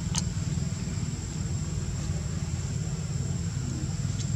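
Steady low background rumble with a constant thin high-pitched hum over it, and one brief high squeak just after the start.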